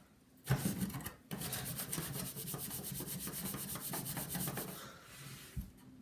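A sponge with baking soda scrubbing a plastic computer case in rapid back-and-forth strokes. It starts about half a second in, breaks off briefly just after a second in, and stops about five seconds in.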